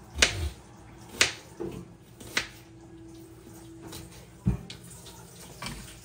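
A few sharp clicks and knocks, about four spread over six seconds, from objects being handled and set down in a kitchen. A faint steady hum comes in briefly midway.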